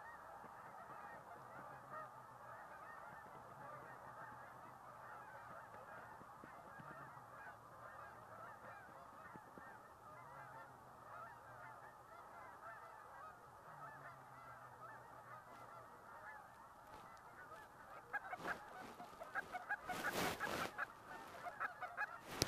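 A large flock of geese honking at a distance, many calls overlapping into a steady chorus. From about three-quarters of the way in, the honking gets louder and sharper as birds come closer.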